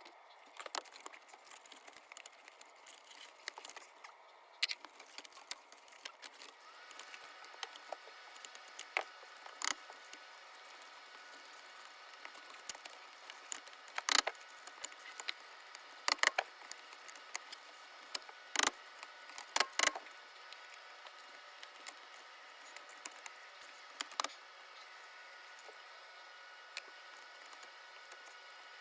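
Scattered sharp clicks and taps over a faint steady hiss. A handful of louder clicks stand out midway.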